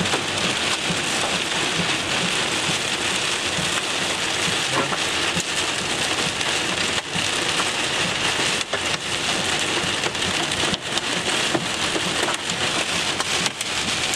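Heavy rain drumming on a car's roof and windshield, heard from inside the cabin. It is a steady, dense hiss scattered with sharp ticks of single impacts.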